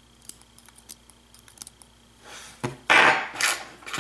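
Small metallic clicks and taps as pins and springs are worked out of a disassembled lock cylinder with small tools, with a louder scraping rattle lasting under a second about three seconds in.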